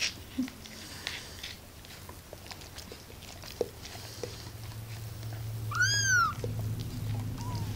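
Young kitten mewing: one loud, high, arching mew about six seconds in, and a fainter short one near the end.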